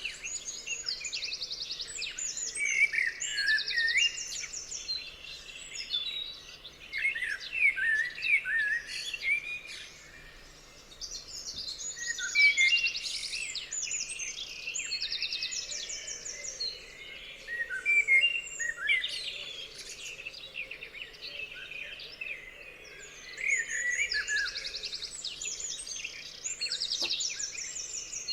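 Several songbirds singing and calling at once: overlapping chirps, short whistled phrases and fast, high trills of rapidly repeated notes.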